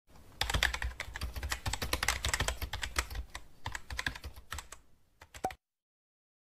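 Computer keyboard typing sound effect: a rapid, uneven run of key clicks that stops abruptly about five and a half seconds in.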